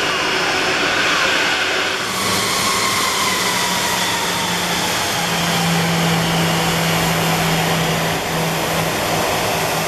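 Airliner jet engines running at taxi thrust, a steady dense rush of noise. After a cut about two seconds in, an Airbus A340-300 with its four CFM56 engines taxis past, with a steady low hum and a slowly falling whine.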